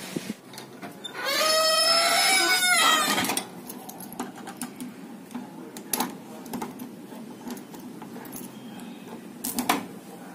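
Keys jingling and clicking at a door lock, with sharp clicks about six seconds in and again near the end. Before that, a loud drawn-out call of about two seconds, its pitch rising and then falling, is the loudest sound.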